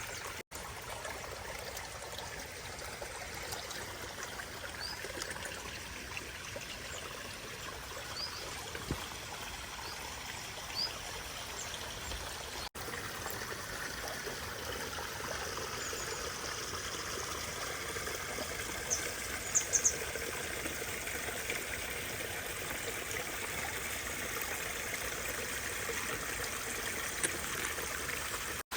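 Water trickling and pouring steadily over natural rock in a pondless waterfall stream. A few short high bird chirps sound over it, with a quick cluster about two-thirds of the way through.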